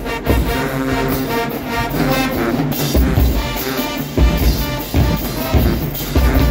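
High school marching band playing live: a brass section of sousaphones, trumpets and trombones sounding held notes over bass drum hits.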